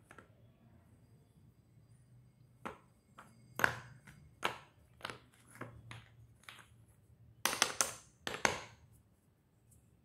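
Triangular slate pencil pieces being snapped and handled by hand: a series of short, sharp cracks and clicks, with a quick run of several close together about three-quarters of the way through.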